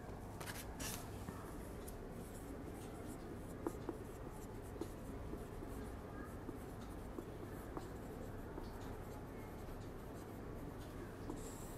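Marker pen writing on a whiteboard: faint scratching strokes with a few light ticks, over a steady low room hum.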